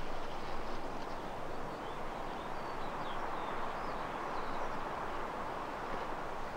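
Steady wind noise in woodland, with a small bird chirping a few short, high notes partway through.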